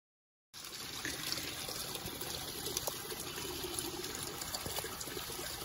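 Steady, even rushing noise, like trickling water, coming in about half a second in after a moment of silence, with a few faint ticks.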